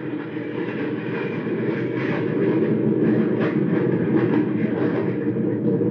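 Radio-drama sound effect of a jet fighter in flight: a steady jet engine roar.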